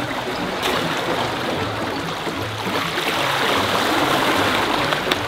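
Seawater washing and swirling against shoreline rocks, a steady rush that grows a little louder past the middle.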